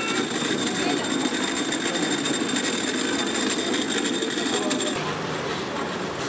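Electric cotton candy machine running, its spinner head giving a steady rattling motor buzz with a thin high tone over it. The machine sound drops away about five seconds in.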